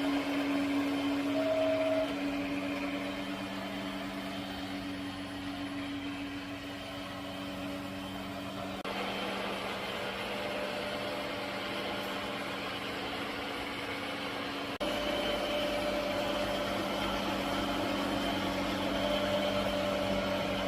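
Robot vacuum cleaner running: a steady motor and fan hum with a few constant tones over a whooshing noise, its level stepping slightly about nine and fifteen seconds in.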